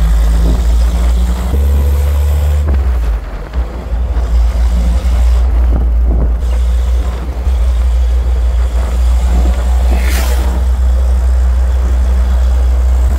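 A 1989 Marlin Roadster driving with its top down, heard from the cockpit: a steady low engine drone mixed with wind and road noise. The engine eases off briefly about three seconds in, and there is a short rush of noise about ten seconds in.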